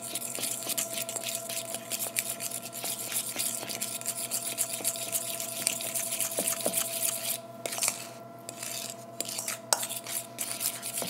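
Whisk stirring soft banana, peanut butter and whipped cream in a stainless steel mixing bowl: quick, soft scraping and tapping against the metal, pausing briefly about two-thirds of the way through, over a steady electrical hum.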